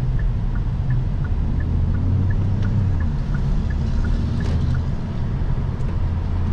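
Kia Forte GT's turbocharged four-cylinder engine and road noise, heard from inside the cabin while driving: a steady low hum that shifts pitch about two seconds in. A light ticking repeats about three times a second.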